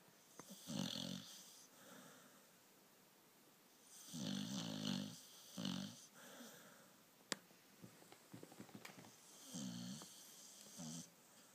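Staffordshire bull terrier snoring in its sleep, in three bouts of low, buzzing snores; the middle bout is the longest. A single sharp click sounds in the lull between the second and third bouts.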